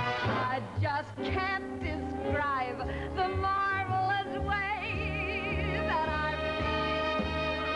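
A woman singing with a band. Her voice slides through quick runs, then holds a long high note with a wide vibrato about five seconds in, followed by steady held notes over the band's low accompaniment.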